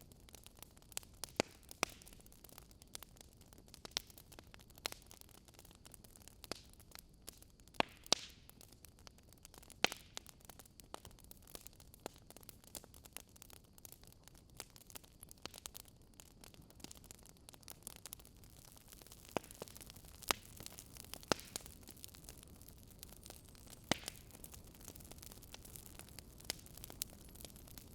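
Wood fire crackling: irregular sharp pops and snaps from burning logs over a soft, steady hiss.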